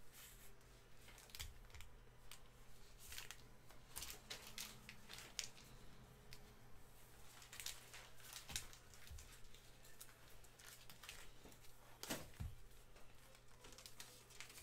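Faint crinkling and rustling of foil trading-card pack wrappers as they are handled and numbered with a marker, in scattered short rustles and taps, over a low steady hum.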